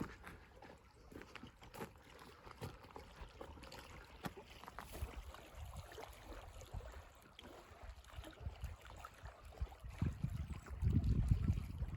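Wind on the microphone: a faint rustle with scattered light ticks, then a low rumble that gets much louder about eleven seconds in.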